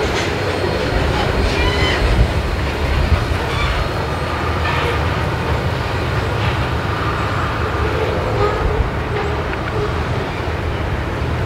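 Canadian National grain train's railcars rolling past, with a steady wheel-on-rail rumble and a few faint, brief squeals.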